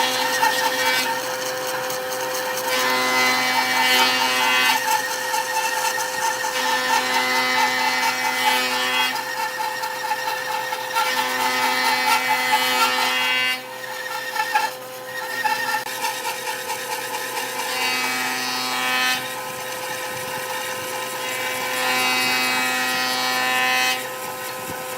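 Wood lathe running, with a turning tool cutting and scraping the spinning wood over a steady motor hum. The cutting sound shifts every couple of seconds and drops sharply about halfway through.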